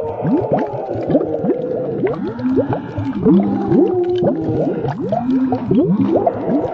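Heavily slowed-down, effect-processed audio: a dense tangle of deep, overlapping tones that keep sliding up and down several times a second, like drawn-out moaning.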